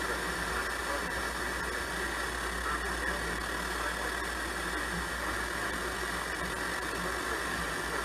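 Steady static hiss with a low hum from a radio receiver, with no voice or alert tones.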